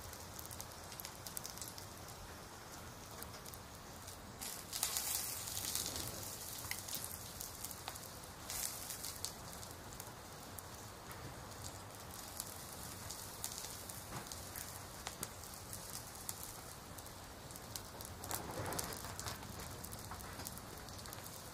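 Rain ambience: a steady patter and hiss with small crackly ticks, swelling louder a few times, about five seconds in and again near the end.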